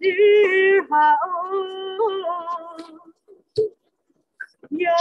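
A single voice singing slow, wordless held notes that step between pitches. It sings for about three seconds, pauses, and comes in again near the end.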